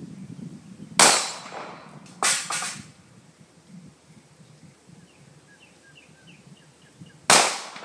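Springfield XD .40 pistol firing: a shot about a second in, a quick pair of shots just after two seconds, and a final shot near the end.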